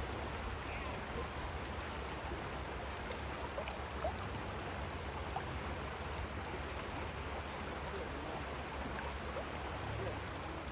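Steady rushing of the Kenai River's current flowing past.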